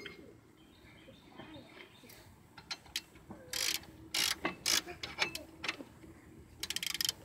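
Socket ratchet clicking in short strokes as it works a brake caliper bolt, with a quick run of clicks near the end.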